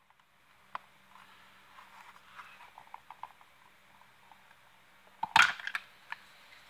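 Close handling noises: a single click, then faint light ticking and rustling, then a sharp cluster of knocks and clicks about five seconds in, and one more click after it.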